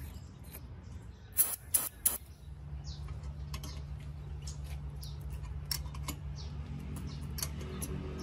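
Three sharp metallic clinks of steel tools and a gear puller against a rusty pulley, then a steady low hum with light scattered metal clicks as the puller screw is worked. Faint bird chirps come and go.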